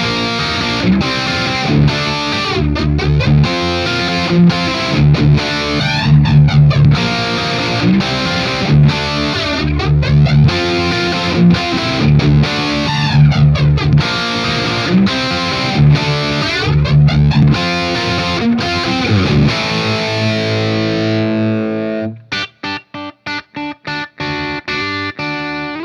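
Electric guitar played through a Friedman BE-OD overdrive pedal into the clean channel of a Marshall Silver Jubilee 2555X reissue at half power, giving a heavily distorted 'brown sound' rock riff with accented low chugs. Near the end a chord is left ringing, then the playing switches to short choppy stabs.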